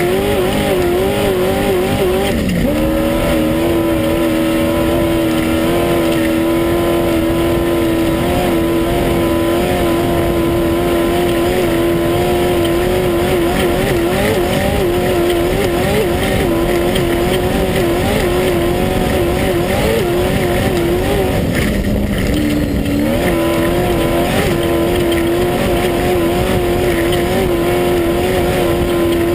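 Class 1 unlimited off-road race buggy's engine running hard at high revs, heard from inside the car over constant loud rattle and road noise. The pitch wavers throughout, drops about two seconds in, and dips briefly around twenty-two seconds before climbing back.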